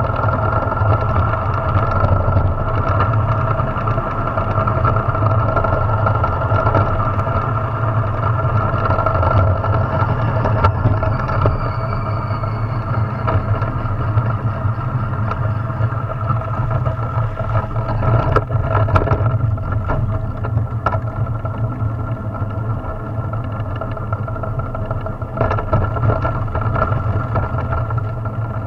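Drift trike rolling fast down an asphalt road: a steady rumble and hum from the wheels on the tarmac, with a few sharp knocks from bumps about two-thirds of the way through.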